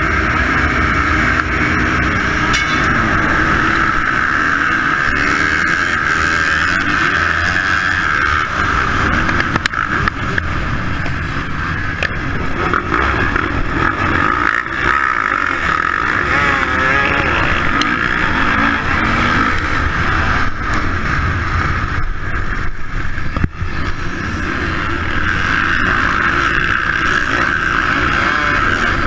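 Suzuki motocross bike's engine revving hard off the start and rising and falling through the gears, heard from a camera on the bike, with other dirt bikes of the pack running close by.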